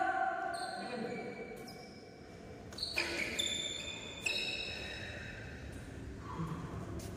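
A few sharp knocks and clicks, each ringing briefly in a large echoing badminton hall between rallies. A player's call trails off at the start.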